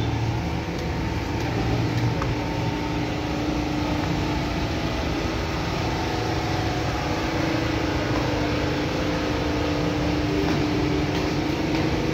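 Steady mechanical hum with an even background noise and a held droning tone, like running machinery.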